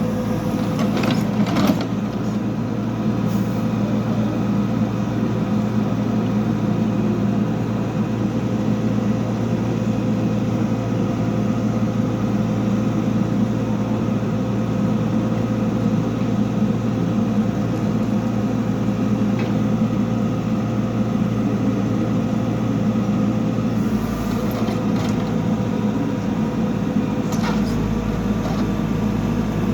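Backhoe loader's diesel engine running steadily while working, with a few short knocks about a second in and again near the end.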